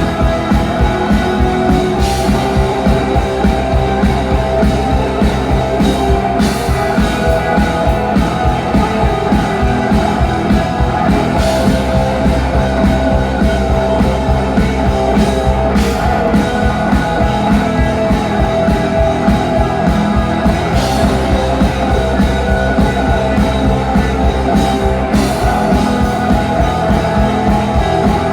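Rock band playing a full-band passage with drums and guitar. A sharp accent hits about every four to five seconds over a steady beat.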